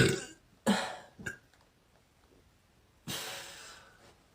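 Two short, abrupt small burps from a woman's throat in the first second, the second with a low tone, then a long breath out about three seconds in.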